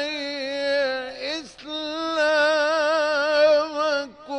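A male Quran reciter's voice in mujawwad-style melodic recitation, holding long ornamented notes. A short breath break comes a little over a second in, then a second long phrase, which ends shortly before the close.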